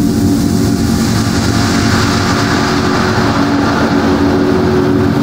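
Layered drone from a sound-art soundscape: several steady low hums under a rushing noise that swells about two seconds in and then fades.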